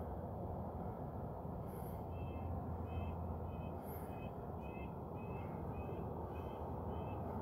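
A bird calling in a steady series of about ten short, evenly spaced notes, roughly two a second, starting about two seconds in, over a steady low background noise.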